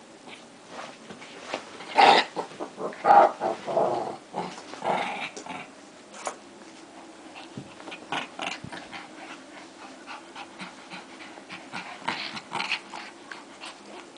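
Two small dogs growling as they play-fight and tug at a rope toy, loudest in a run of bursts about two to five seconds in, with shorter flare-ups later.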